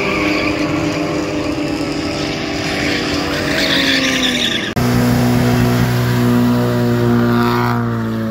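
Drift cars running hard with engines revving and tires squealing in a slide. About halfway through the sound cuts abruptly to another engine holding high, steady revs, which climbs in pitch near the end.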